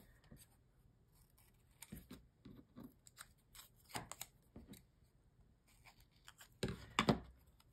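Scissors snipping paper while trimming a small paper label: a scattering of short, separate snips, the loudest ones near the end.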